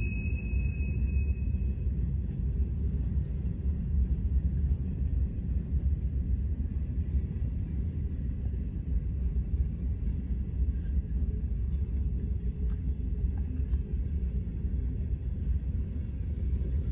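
Freight train cars rolling past, a steady low rumble of steel wheels on rail. A single high wheel squeal fades out in the first couple of seconds.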